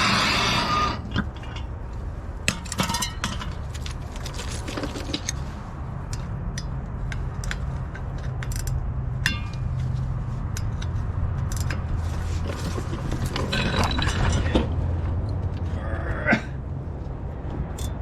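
A torch flame hissing, shut off about a second in. Then scattered metallic clinks and taps of tools against the truck's driveline parts, over a steady low hum.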